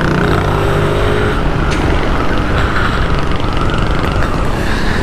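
Yamaha NMAX scooter's single-cylinder engine running at a steady cruising speed under a loud, steady rush of wind on the microphone. A pitched engine hum stands out in the first second or so, then sinks into the wind noise.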